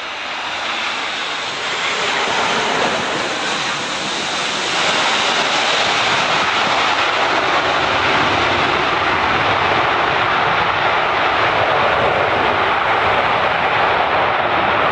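McDonnell Douglas MD-11 tri-jet airliner's engines running loud on the landing rollout just after touchdown. The jet noise rises about two seconds in and again about five seconds in, then holds steady, as the engines spool up into reverse thrust to slow the aircraft.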